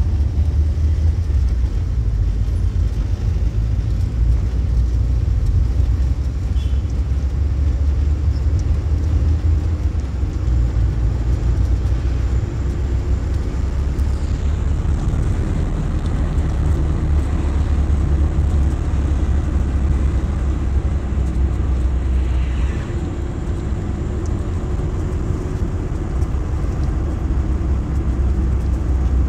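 Car cabin noise while driving: a steady low engine and road rumble heard from inside the car.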